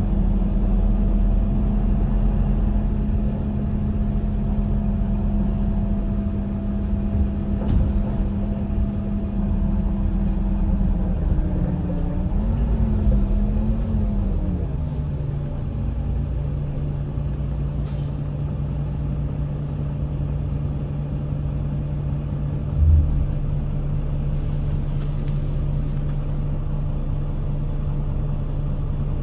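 Van Hool NewA309 city bus with its MAN diesel engine and ZF gearbox, heard from inside the cabin: the engine runs steadily while driving, its tone wavers and drops a little before halfway as the bus slows, then it settles into a lower steady idle while the bus stands still. One brief low thump about three-quarters of the way through.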